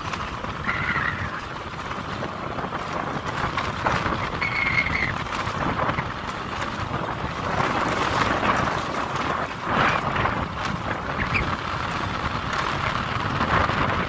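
Wind buffeting the microphone on a moving motorbike, over the steady running of small motorbike engines on a rough concrete path. Two brief high beeps stand out, about a second in and about four and a half seconds in.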